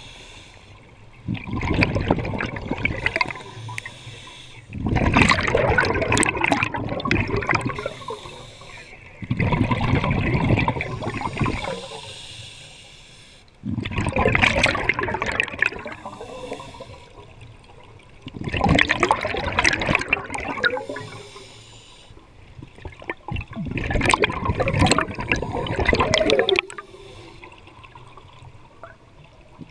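Scuba diver's breathing underwater: exhaled air bubbling out of the regulator in a burst every four to five seconds, about six in all, with quieter stretches between breaths.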